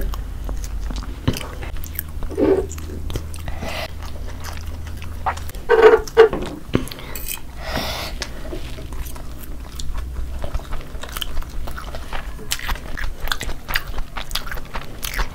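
Close-miked eating: two people biting and chewing cheesy chicken pizza and chicken fried noodles, with many short wet smacks and clicks scattered throughout.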